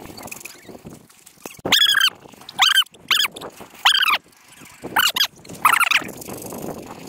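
A husky whining and yelping in a string of about six short, high-pitched, wavering cries, packed into a few seconds.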